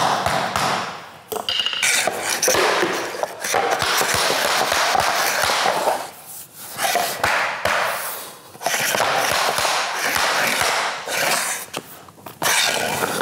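Mallet hitting a tapping block hard and repeatedly, in quick runs of sharp knocks with short pauses, to drive a long, wide drop-and-lock luxury vinyl plank into its joint.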